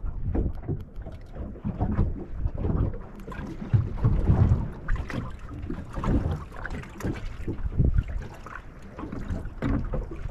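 Wind buffeting the microphone in uneven gusts, with choppy water splashing and slapping against the hull of a small boat.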